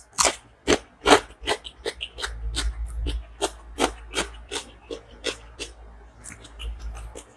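Close-miked eating of chicken curry and rice: wet chewing and smacking mouth sounds, a string of sharp irregular clicks about two to three a second, over a steady low hum.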